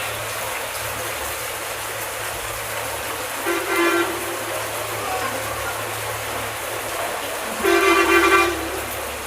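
A vehicle horn sounding two short, steady honks about four seconds apart, the second a little longer, over the steady hiss of heavy rain.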